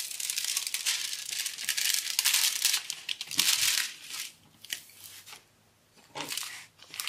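Plastic-covered diamond painting canvas crinkling as hands press and smooth it flat: a dense crackle for the first few seconds, then a few short crinkles near the end.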